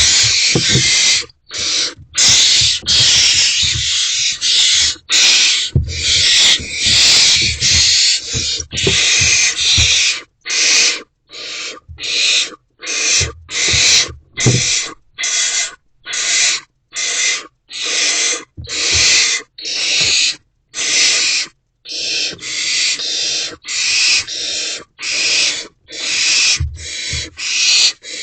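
Barn owlets hissing their rasping, snore-like begging calls. The hisses are long and nearly unbroken at first, then come as short separate hisses a bit more than once a second, with low bumps of the chicks moving about.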